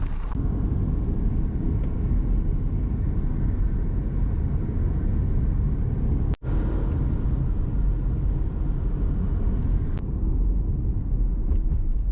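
Steady low rumble of road and engine noise heard inside a moving car, with a momentary drop-out about halfway through.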